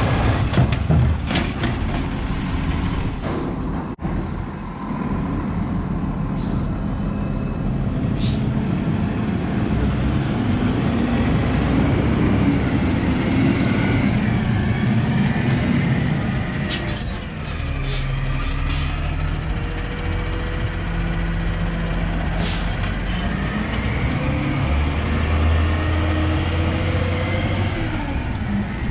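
Diesel engine of an automated side-loader garbage truck running as it moves off, its pitch rising as it accelerates, with short air-brake hisses several times.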